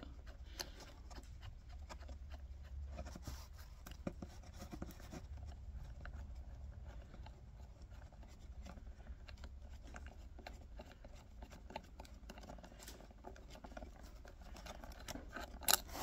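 Faint scratchy ticking and clicking of a socket-head bolt being spun out of its threads by hand, with light handling of the metal parts; a sharper click comes near the end.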